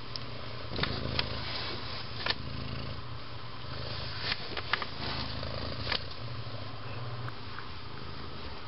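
Soft rustling and a few light clicks of a hand and small kittens moving on a fleece pet bed, over a low steady hum.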